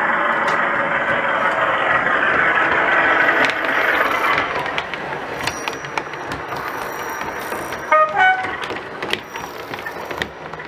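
O gauge model diesel locomotive's DCC sound, its engine running loudly, fading about four seconds in, then a run of light clicks. About eight seconds in the horn gives a short two-note toot, the second note higher.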